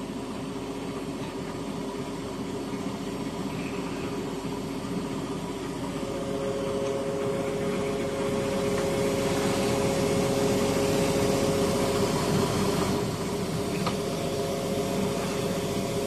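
Steady drone of running machinery. A humming tone comes in about six seconds in and grows louder, then eases off a little near the end.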